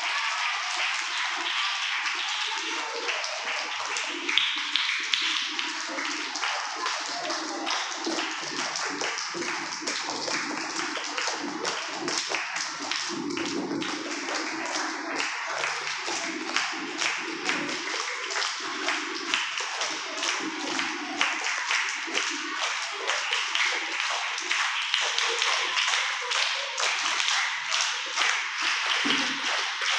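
A crowd clapping continuously and unevenly, many separate hand-claps blending together.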